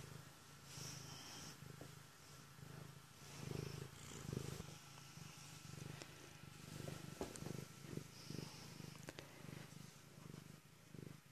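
Domestic cat purring steadily, close to the microphone, while being stroked, with a few soft clicks and rustles of hand and fur.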